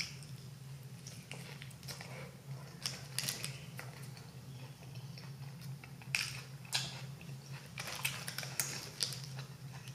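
Close-miked chewing of a mouthful of burger, with scattered small wet clicks and crackles, and light rustling of a paper napkin and wrapper. A steady low hum runs underneath.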